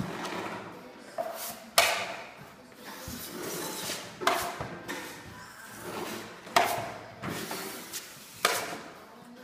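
Metal drywall taping knife scraping joint compound along a drywall corner and against a metal mud pan. Sharp scraping strokes come about every two seconds, each trailing off in a short scrape.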